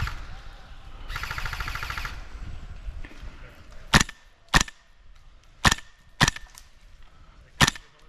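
Airsoft guns firing: a rapid full-auto burst lasting about a second near the start, then three pairs of sharp single shots from about four seconds in.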